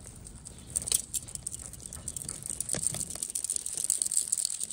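Gloved hand working soil in a planter: irregular scratchy rustles, crackles and small knocks.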